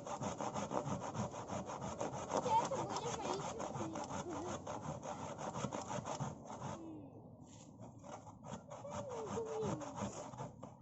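A hand saw cutting through wood in quick back-and-forth strokes. About two-thirds of the way through, the strokes become slower and more spaced out.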